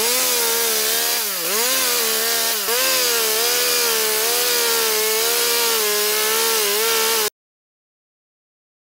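Chainsaw running under load as it rips lengthwise along a log, with a guide bracket on the bar. Its engine pitch dips twice early on as the chain bites, then holds fairly steady with a slight wobble. The sound cuts off abruptly near the end, leaving silence.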